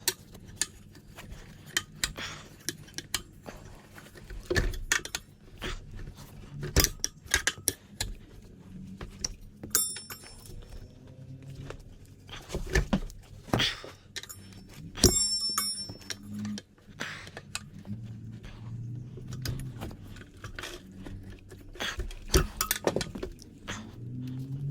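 Metal tire irons clinking, tapping and scraping against a motorcycle wheel rim as a tire is worked on over its inner tube. Two clanks ring out, about ten and fifteen seconds in.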